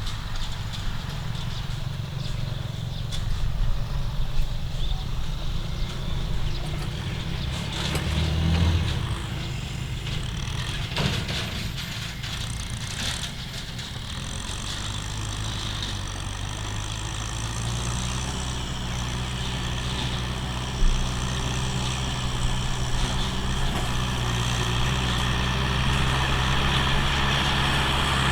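Tractor engine running steadily with a low hum; it grows louder and more even from about halfway through. A few short knocks come between about 8 and 13 seconds in, and there is one sharp knock later on.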